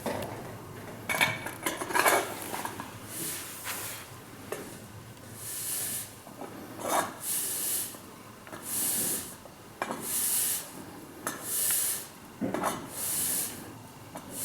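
Grain rustling and scraping against the tube of a Vikhr-2000B grain-pile aeration fan as the fan is twisted down into the pile by hand, in regular hissing strokes about every second and a half. There are some scraping clicks near the start.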